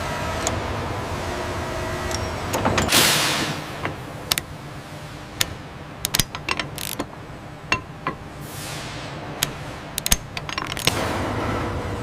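Factory machinery: a steady mechanical hum, broken by a series of sharp metallic clicks and clanks and two short hissing bursts that fall in pitch, before the hum returns near the end.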